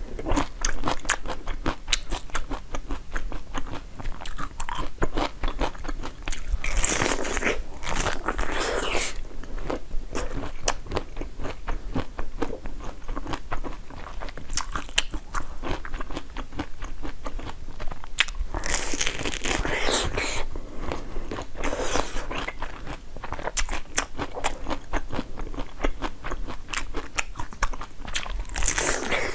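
Close-miked eating: a person biting into and chewing frozen treats and jelly, a dense run of crisp crunching and crackling clicks with a few louder bites.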